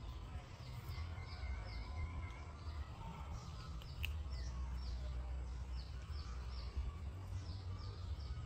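A bird chirping in a series of short, high, falling notes, two or three a second, over a steady low rumble. A single sharp click sounds about four seconds in.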